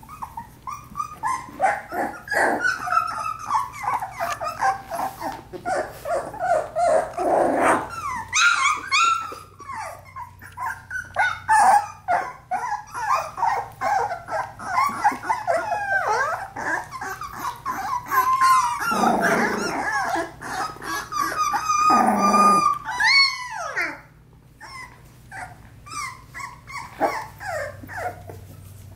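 Four-week-old Australian Labradoodle puppies vocalizing at play: a dense run of short, high whimpers and yips with small growls and barks, thinning out after about 24 seconds in.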